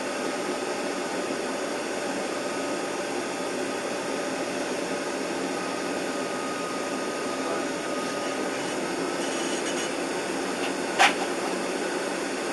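Steady hiss and hum inside the cabin of a slowly moving vehicle, with one sharp click near the end.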